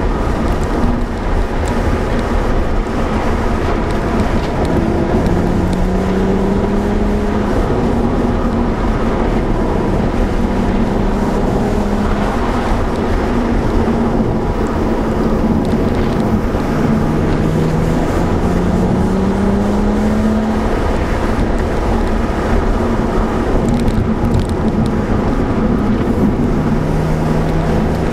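BMW 135i's turbocharged straight-six engine and the road and tyre noise heard from inside the cabin while driving. The engine note rises several times as the car accelerates.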